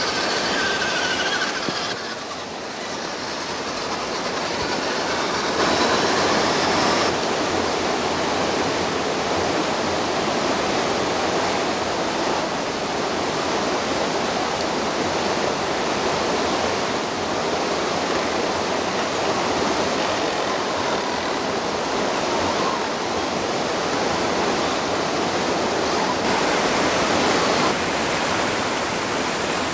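Steady rushing of river water running over rocks, a continuous hiss-like roar whose level shifts suddenly a few times, about 2, 6, 7 and 26 seconds in.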